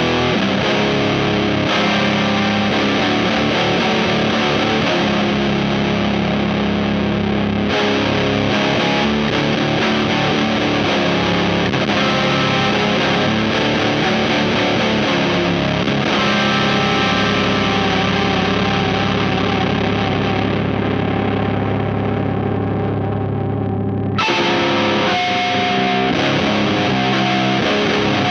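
Electric guitar in C standard tuning, with Thunderbird-style bass pickups, played through a Rat-style distortion pedal (Space Sounds Spacecraft). Heavy distorted chords ring out. A long chord fades out before a new one is struck near the end.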